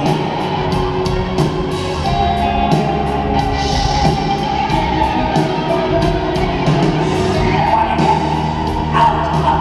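Hard rock band playing live in an arena: electric guitars sustaining notes over a steady drum beat.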